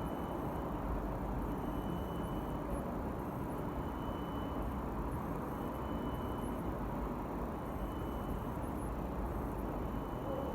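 Steady background rumble and hiss, with a faint, short, high-pitched electronic beep repeating about every two seconds.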